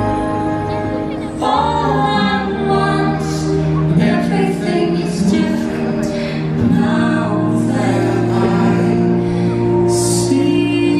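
Show music with a woman singing over choir and long held orchestral notes, the soundtrack of a nighttime fireworks show.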